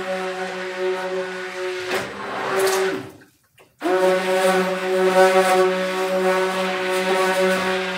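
Electric stick blender motor running with a steady hum. It is switched off about three seconds in, briefly falls silent, and starts up again about a second later.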